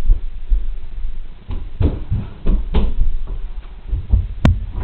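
Irregular dull thumps and knocks from people moving about right by the camera, footsteps and bumps, with one sharp click near the end.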